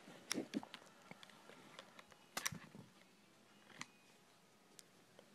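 Faint small plastic clicks and taps of a memory card being fitted into its spring-loaded ejector case and the release button pressed. The sharpest clicks come about a third of a second in and about two and a half seconds in.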